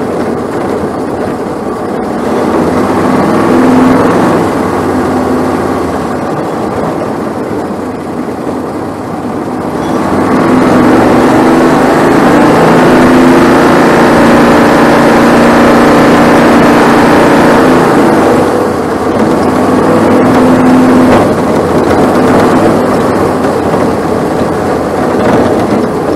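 Onboard sound of a Bandolero race car's Briggs & Stratton 570cc Vanguard V-twin engine running under load around a short oval. It grows louder for several seconds in the middle, while the car is on the straight, then eases back, with wind and road noise underneath.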